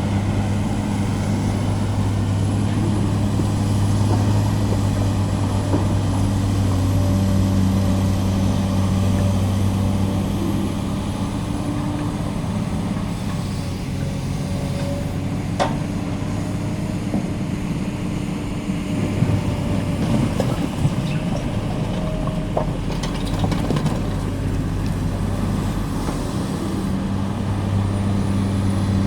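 Volvo excavator's diesel engine running steadily, its pitch shifting a little as the hydraulics take load, with a few sharp knocks of metal and concrete in the second half.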